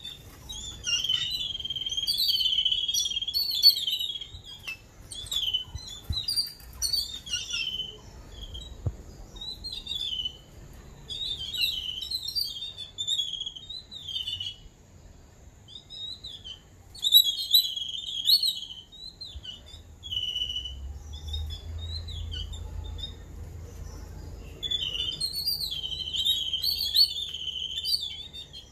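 A group of babblers (the 'seven sisters') chattering in repeated bouts of high, squeaky, scratchy calls, with short gaps between bouts.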